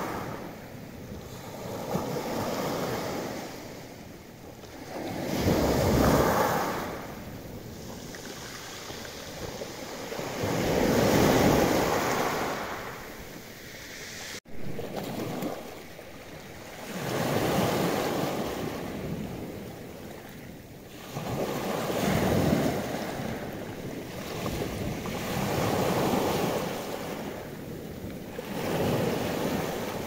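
Black Sea waves breaking on the beach, swelling and fading every few seconds, with wind buffeting the microphone.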